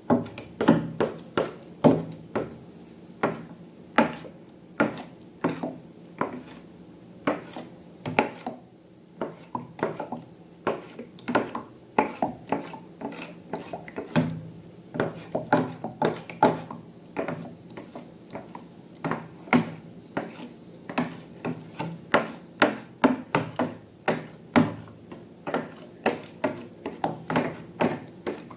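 Slime being mixed and handled: a steady run of sharp, irregular clicks and taps, about one or two a second.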